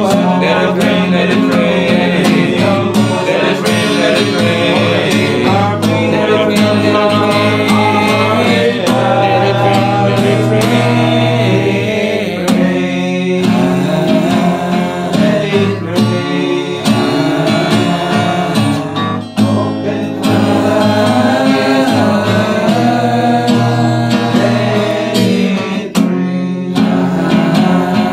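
Men's choir singing a Christian worship song over guitar accompaniment.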